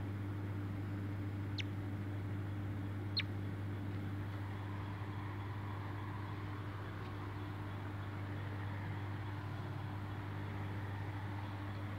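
Two brief, high squeaks falling in pitch, a second and a half apart, from a young palm squirrel, over a steady low hum and hiss.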